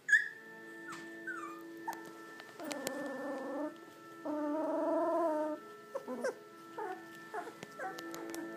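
Two-week-old Labrador Retriever puppies whimpering: short squeaks scattered through, with two longer wavering cries around the middle, over quiet background music.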